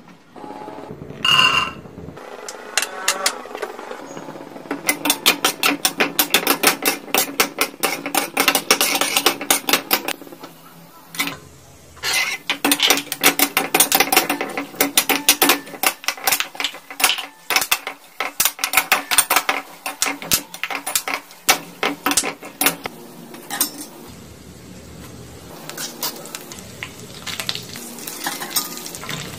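Peanuts and dry coconut slices sizzling in hot oil in a stainless steel kadai while a metal spoon stirs them, clinking and scraping against the pan in rapid repeated strokes. A brief clatter comes about a second and a half in. The stirring clinks thin out after about 23 seconds, leaving quieter sizzling with occasional taps.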